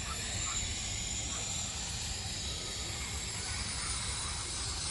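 Steady hissing from something on the cooking setup, with a low rumble underneath.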